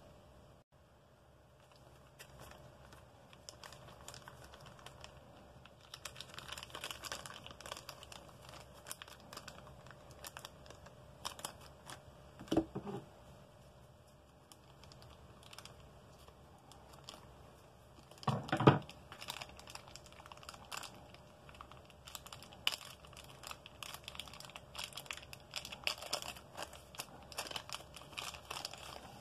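Clear plastic anti-static bag crinkling and crackling as a 2.5-inch SATA SSD is handled and worked out of it, with two louder knocks in the middle stretch.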